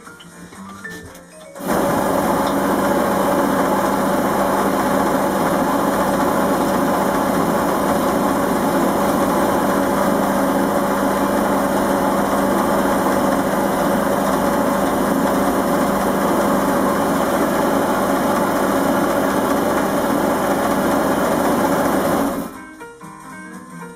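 Einhell wood lathe running while a gouge cuts a spinning beech blank: a steady motor hum under a continuous rough cutting hiss. It starts abruptly about two seconds in and stops abruptly near the end, with quiet background music on either side.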